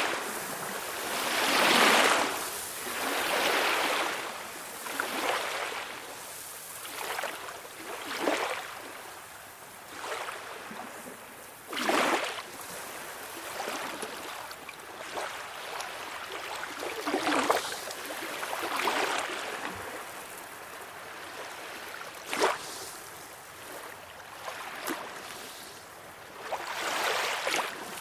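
Calm sea: small waves washing and lapping onto a shore, each wash swelling and fading every few seconds, with a few short, sharper splashes, the loudest about 12 and 22 seconds in.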